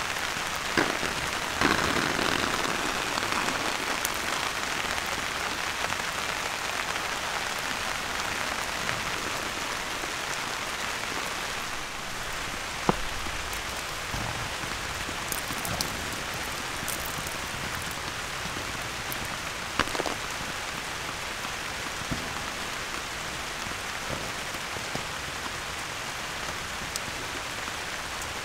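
Steady rain falling, with a few louder single drips striking close by; the sharpest comes about halfway through.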